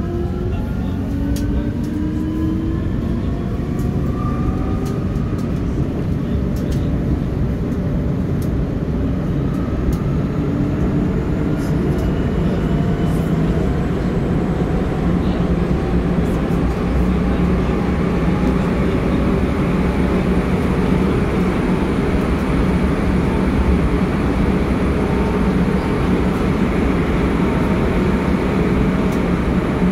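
Steady rumble and hiss of an M4 metro train running, heard from inside the passenger car. In the first ten seconds or so, the electric traction motors give a whine that rises in pitch as the train gathers speed, then it settles into an even running noise.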